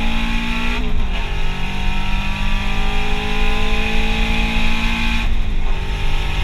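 Turbocharged Scion FR-S flat-four engine pulling hard under acceleration, heard from inside the cabin, its pitch climbing steadily. It breaks and drops at a gear change about a second in, climbs again, then drops off about five seconds in.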